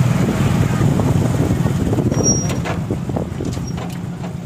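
Small motorcycle engine running steadily under way, with a brief high squeak about two seconds in.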